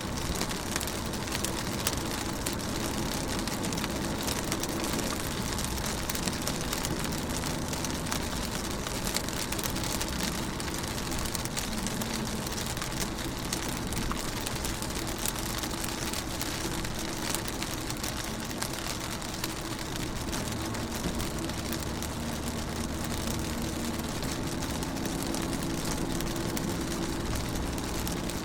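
Rain pattering on window glass, a steady hiss of many small drop ticks, with a steady low hum underneath.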